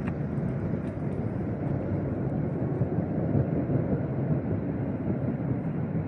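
Steady low outdoor background rumble, with no clear single event.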